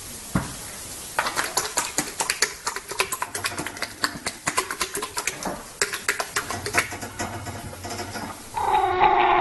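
Rapid, irregular clicking and light clattering, like small hard objects knocking together, several clicks a second. It starts about a second in and stops shortly before the end.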